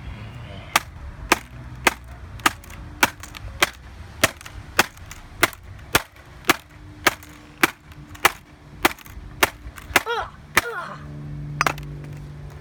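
Repeated hard blows on a MacBook's keyboard, about fifteen sharp cracks in a steady rhythm of nearly two a second, striking the keys to knock them out. The blows stop about a second and a half before the end.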